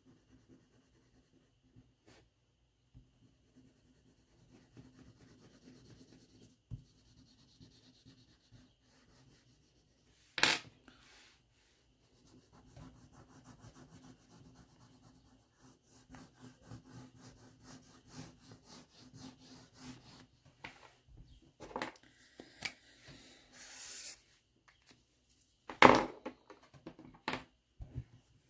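Crayon scribbling back and forth on paper, a soft rubbing scratch that runs on in stretches. It is broken by a few sharp knocks, the loudest about ten seconds in and again near the end.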